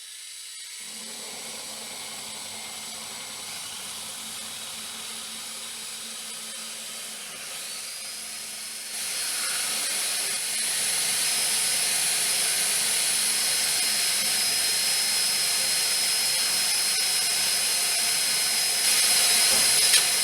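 Battery-operated drill with a 1/4-inch diamond bit grinding a hole through bottle-bottom glass under water: a steady high motor whine over a grinding hiss. It gets louder in steps about nine seconds in and again near the end, then cuts off suddenly as the bit breaks through.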